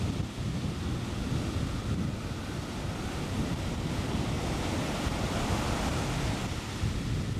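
Ocean surf breaking and washing on a beach, with wind buffeting the microphone in a steady low rumble.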